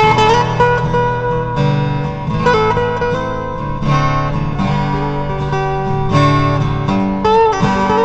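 Instrumental background music led by guitar, with no singing.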